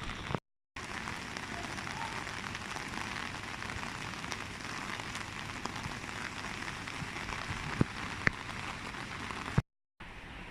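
Heavy rain falling, a steady hiss with a few sharp knocks of drops about eight seconds in. The sound drops out completely twice, briefly, near the start and near the end.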